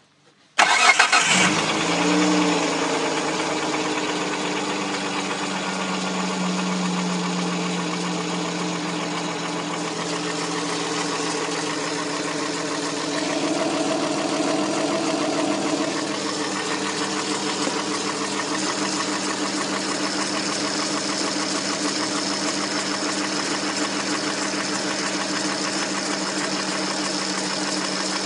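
6GEA car engine starting about half a second in and then idling steadily, with the knock in the engine that the owner is chasing.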